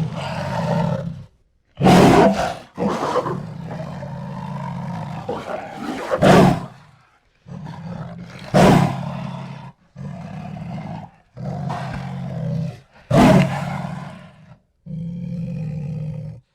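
Jaguar roars and growls, a run of separate deep calls, several opening with a loud outburst, each ending abruptly in a short silence.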